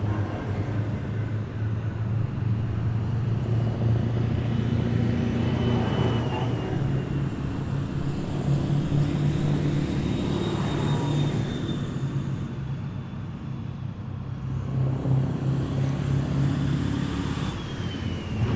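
Heavy military vehicles driving past in a column, with a deep engine hum and a high whine that falls in pitch as vehicles go by.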